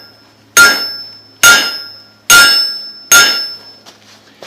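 Blacksmith's hammer striking hot steel on the anvil, drawing a point on a holdfast over the anvil's sharp edge. Four evenly spaced blows come a little under a second apart, each leaving a clear metallic ring that fades before the next.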